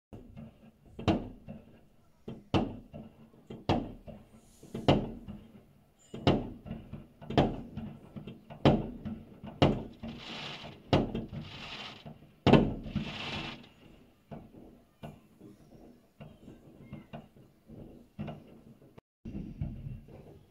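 Fireworks going off outside: a string of sharp bangs about one a second, each with an echoing tail. Three hissing, crackling bursts come around ten to thirteen seconds in, and the bangs thin out after that.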